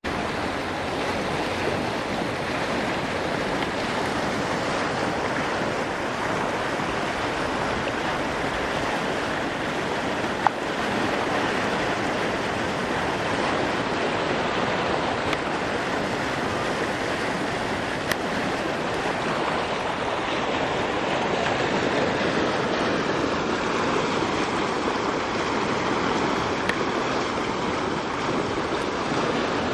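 Swollen floodwater from storm rains rushing steadily, a current strong enough to strip soil from farmland. A few brief clicks sound over it.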